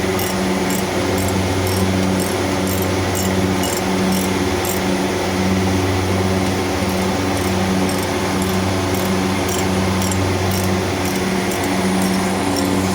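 Air-conditioning machinery running with a loud, steady hum and a regular pulse roughly once a second.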